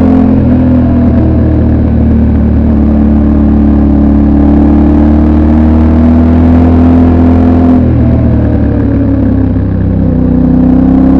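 Yamaha Ténéré 700 World Raid's 689 cc parallel-twin engine, with its stock exhaust, heard on board while riding. It pulls at a fairly steady engine speed, changes pitch near the start and again about eight seconds in, then climbs in revs.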